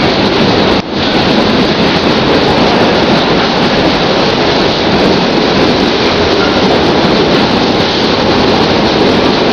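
Container freight train wagons passing close by at speed: a loud, steady rush of wheels on rail and moving air, with one brief dip just under a second in.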